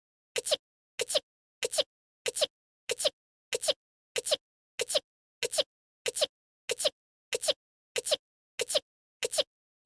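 A short anime girl's sneeze looped over and over, about three every two seconds, each a quick burst with silence between.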